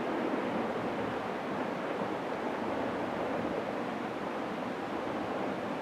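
Distant avalanche on the mountainside: a steady, even rushing roar with no distinct crashes.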